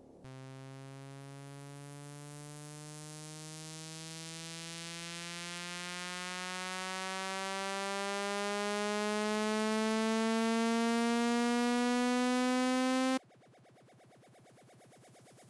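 Synthesized riser sound effect: a buzzy electronic tone that glides slowly upward about an octave while growing louder, then cuts off suddenly about thirteen seconds in. A much fainter pulsing sound follows.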